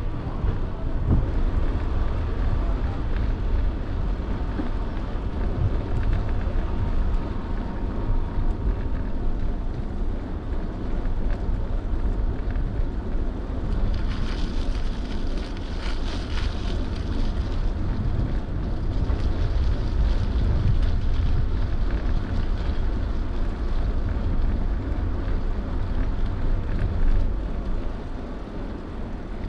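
Wind buffeting the microphone of a camera riding on a moving bicycle: a steady, dense low rumble, with a brighter hiss joining in for a few seconds midway.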